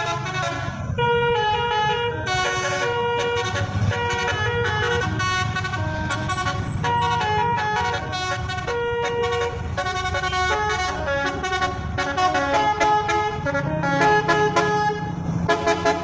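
A bus's telolet horn, a multi-tone musical air horn, playing a quick tune: note follows note without a break, over the low steady sound of the bus.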